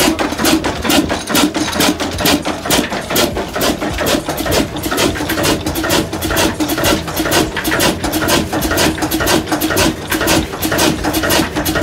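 Old stationary engine with a large flywheel running steadily under load, driving a flat belt to a wood saw. A regular loud beat, about four to five strokes a second, over a steady hum, echoing in a small shed.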